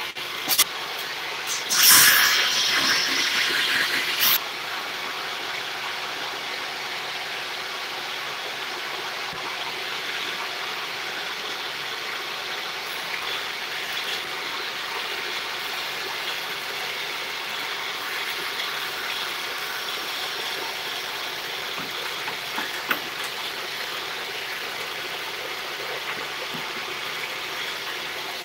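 Table saw running without cutting, an even rushing hiss with no clear pitch. Louder scraping and handling noise comes in the first four seconds.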